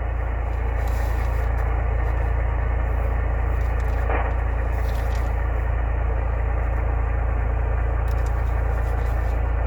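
CB radio receiver hissing with band static on 27 MHz upper sideband while waiting for a reply, an even rush of noise with a steady low hum beneath it.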